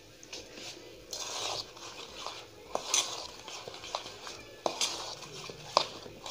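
Metal spoon stirring powdered sugar and oil in a stainless steel bowl: gritty scraping against the bowl, with a few sharp clinks where the spoon strikes the side, the loudest near the end.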